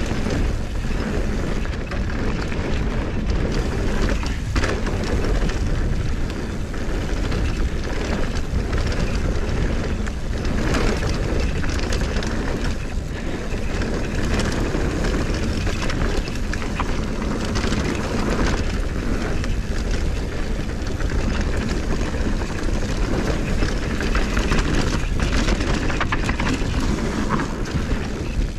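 Mountain bike riding fast down a rocky dirt trail: wind buffeting the microphone over a steady rumble of tyres on loose dirt and stones, with frequent rattles and knocks from the bike over bumps.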